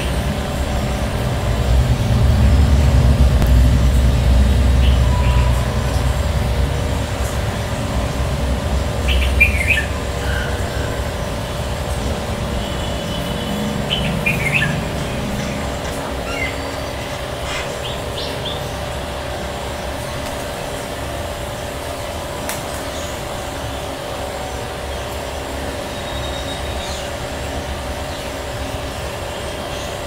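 A low rumble, loudest in the first few seconds and slowly fading, over a steady hum, with a few short bird chirps about nine and fourteen seconds in.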